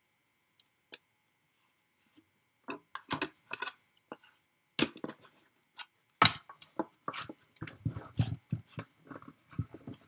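Clear acrylic cutting plates, a thin metal die and cardstock being handled and stacked for a manual die-cutting machine: scattered clicks and clacks, with two sharper knocks about five and six seconds in, then a run of soft thumps.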